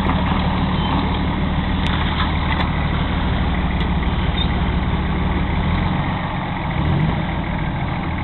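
Off-road vehicle's engine running steadily at low revs; about six seconds in its note changes, with a brief rise in revs near seven seconds.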